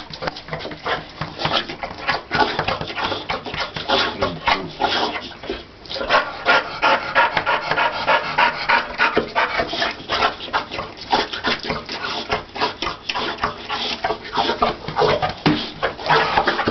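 Boxer dog panting hard and fast, the rapid breathing of a dog wildly over-excited at a visitor's arrival.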